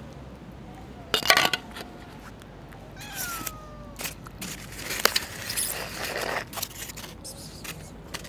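Stray cats meowing and squabbling: a loud, sharp rasping burst about a second in, a short falling meow about three seconds in, and a longer rasping stretch around five to six seconds.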